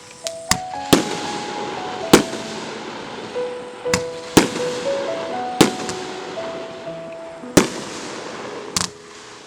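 Consumer fireworks going off: about nine sharp bangs at irregular intervals, the loudest about two seconds in, with crackling between them. Background music plays underneath.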